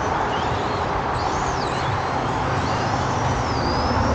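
Radio-controlled race trucks running on the track: high motor whines that rise and fall in pitch as they accelerate and slow through the corners, over a steady hum and noise haze.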